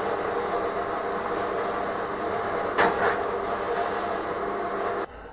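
Band saw running and cutting, heard from a distance: a steady machine drone with a brief louder surge about three seconds in, stopping abruptly just before the end.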